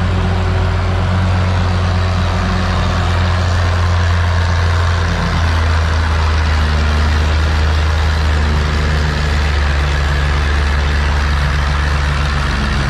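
Oliver tractor's engine pulling a weight-transfer sled under load at a steady slow pulling speed: a loud, low, even engine note with a slight shift about five seconds in.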